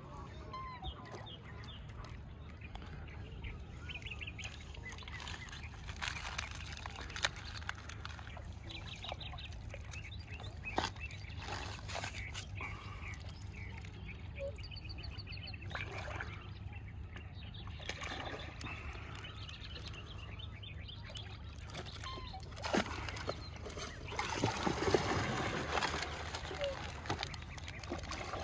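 Waterfowl calling, with scattered honks over a steady low rumble and a louder stretch of calls near the end.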